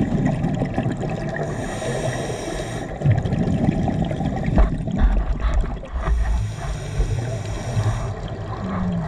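Scuba diver breathing through a regulator underwater: twice a hissing inhalation with a faint whistle, each followed by a low, gurgling rush of exhaled bubbles.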